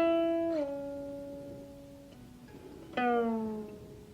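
Guqin played solo: a plucked note rings on and slides down in pitch just under a second in, drops again faintly about two seconds in, then a second plucked note about three seconds in glides downward as it fades.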